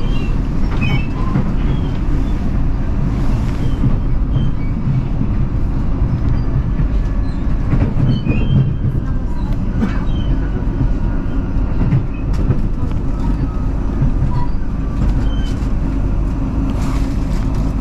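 Electric commuter train running between stations, heard from inside the carriage: a steady rumble of wheels on rails, with scattered clicks from the track and faint little squeaks.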